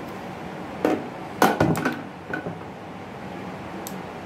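Handling of a stainless steel automatic soap dispenser's plastic cap and body: a few sharp clicks and knocks, the loudest cluster about a second and a half in.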